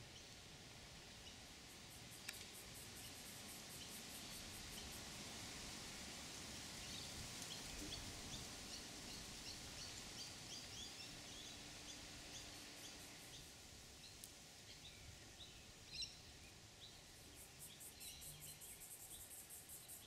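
Faint outdoor ambience: small birds chirping, with scattered short high calls that are densest in the middle. A very high, rapid ticking comes in near the start and again near the end, and there is one brief click late on.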